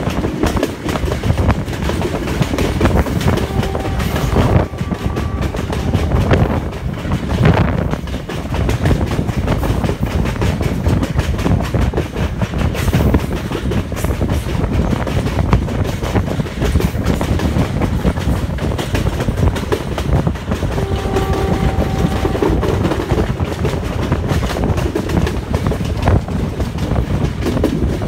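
Passenger train running at speed, heard from an open carriage window: a steady rush of noise with the clickety-clack of wheels over the rail joints. A faint steady tone sounds briefly twice.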